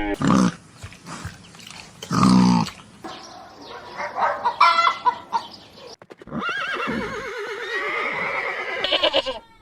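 Farm animals calling: a few short calls in the first half, then a horse's long whinny with a quickly wavering pitch lasting about three seconds in the second half.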